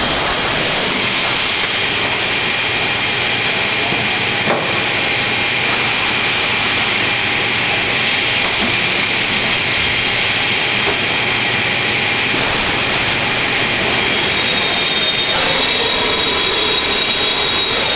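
Automatic MDF panel-cutting saw running: a steady loud hiss with a high whine held over it, and a single click about four and a half seconds in.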